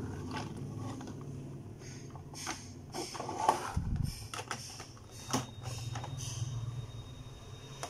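Hard plastic clicks and knocks as a Beyblade stadium's plastic parts are handled and a red plastic stopper is pressed into its rim, with a dull thump about four seconds in, over a steady low hum.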